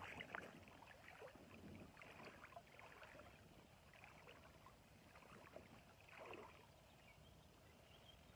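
Near silence with faint water sounds: shallow river water lapping and lightly splashing around legs standing in it, with a slightly louder swell about six seconds in.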